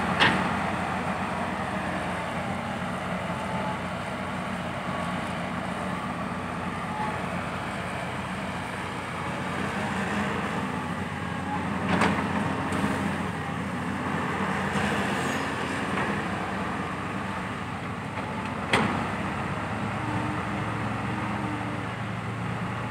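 Heavy diesel machinery running steadily: excavator and dump truck engines at a work site. A few sharp knocks stand out, one near the middle and one later on.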